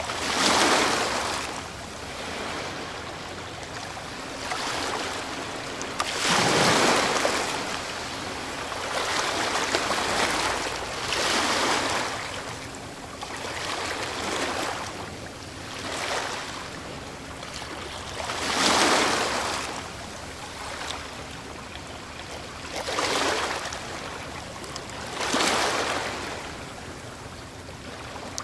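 Ocean waves breaking on a shore one after another, each breaker swelling into a rushing wash and then fading, over a steady hiss of surf. The biggest break about a second in, around a quarter of the way through, past the middle, and near the end.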